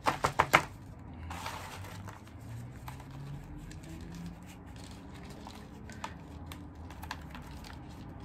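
Orchid bark chips clattering and rustling as fingers press them down into a thin clear plastic pot. It opens with a quick run of about four sharp clicks, then a brief rustle and scattered light ticks as the chips shift.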